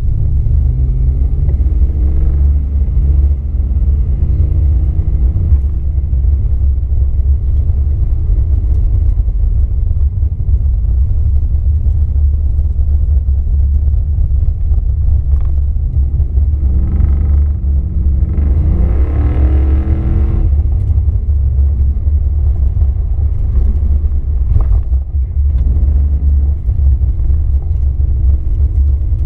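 A muscle car's engine running hard over a constant deep rumble. Its note climbs under acceleration about two seconds in and again, most strongly, about two-thirds of the way through.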